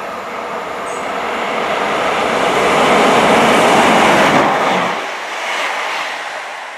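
Class 158 diesel multiple unit passing through at speed without stopping. The rush of the train builds as it approaches, is loudest about three to four seconds in as it goes by, then falls away and fades.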